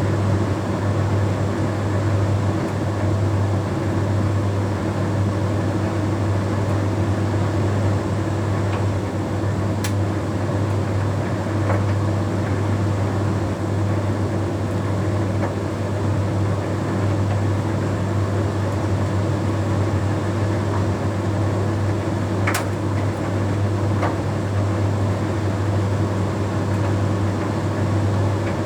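Bosch Series 6 heat pump tumble dryer running a Shirts cycle: a steady low hum with the drum turning. A few faint clicks, likely light items in the drum tapping it, sound about 10, 12, 22 and 24 seconds in.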